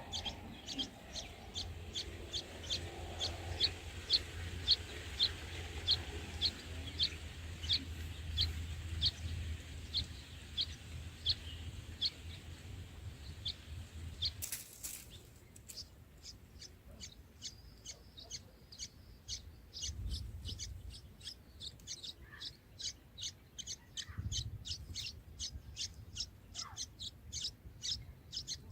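A small bird repeating a short, high chirp over and over, about two a second. About halfway a sharp click breaks in, a low rumble stops, and the chirps carry on a little faster.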